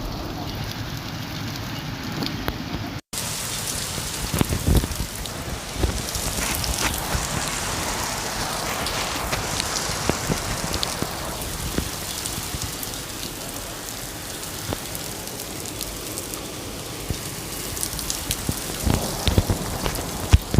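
Steady heavy rain with many individual drops striking a surface. About three seconds in the sound cuts out for an instant and resumes with a brighter, hissier rain, with a few heavier low hits near the middle and the end.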